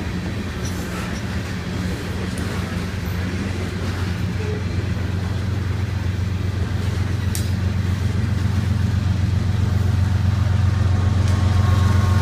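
Coal train hopper cars rolling past on the rails with a steady low rumble. The BNSF diesel locomotives at the rear of the train draw closer, and their engine drone grows louder toward the end.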